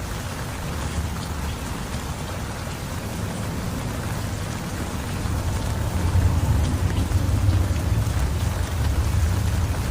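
Heavy rain falling steadily, with a low rumble underneath that grows louder about six seconds in.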